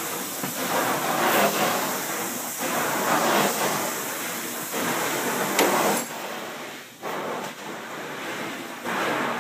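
Carpet-cleaning edge tool running with a loud hiss of suction, surging about once a second as it is pushed and pulled along the carpet edge, then quieter from about six seconds in.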